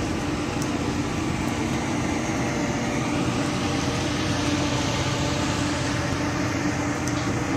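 Steady mechanical hum of ventilation fans, with a low drone.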